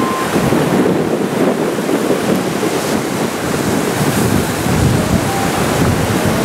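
Wind buffeting the microphone over the steady rush of rough surf churning against the pier below.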